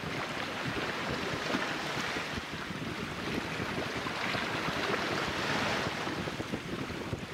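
Small waves washing on the shore, swelling twice, with wind buffeting the microphone.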